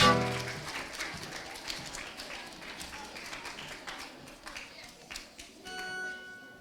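Audience applause after the last note of a piece rings out, slowly fading to scattered claps. Shortly before the end comes a brief steady held note.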